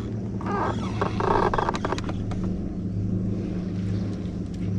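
Boat motor running with a steady low hum, with a few light clicks and a short burst of noise about a second in.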